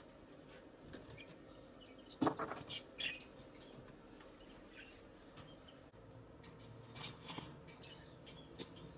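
Faint chirps of small cage birds, with handling noises from the cages: a clatter about two seconds in, then a few light clicks.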